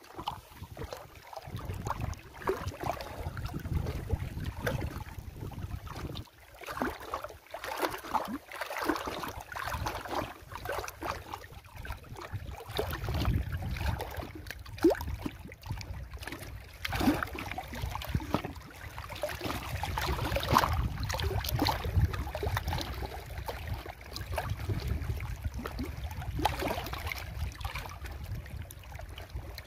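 Small waves lapping and splashing irregularly against shore rocks, with a steady low wind rumble on the microphone.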